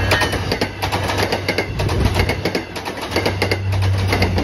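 Commuter rail push-pull train passing close by: its wheels clack over the rail joints in a rapid run of sharp clicks over a steady low diesel drone. The tail of a horn blast ends just at the start, and the locomotive's engine drone grows louder near the end as it goes by.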